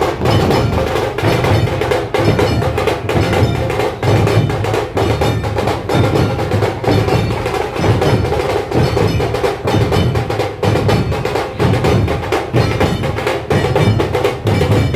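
Dhol-tasha drum ensemble playing: rapid, dense tasha stick strokes over a steady beat of deep dhol strokes.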